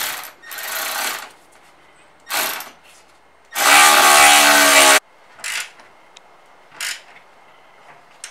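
Cordless electric ratchet driving a bolt through a steel wall bracket in short bursts, with one loud run of about a second and a half just past the middle.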